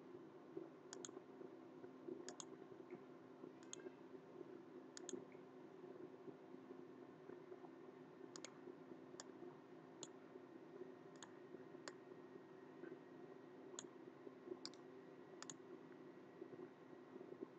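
Faint computer mouse clicks, about a dozen sharp single clicks spaced irregularly a second or so apart, over a low steady room hum.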